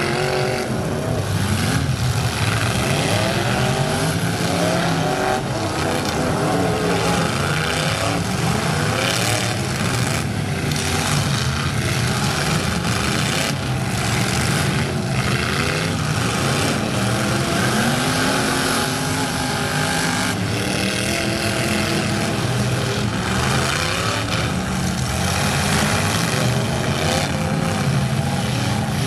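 Several demolition-derby pickup trucks' engines revving hard together, their pitch repeatedly rising and falling as they accelerate and back off, with a few sharp bangs from trucks hitting one another.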